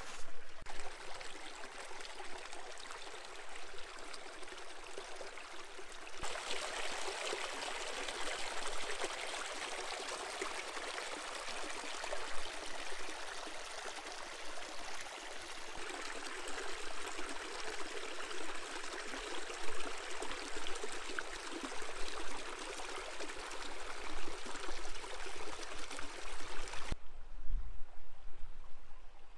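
A shallow desert stream trickling over sand and rocks, a steady rushing hiss. It gets louder about a fifth of the way in and drops to a faint hush near the end, where there is a brief low bump.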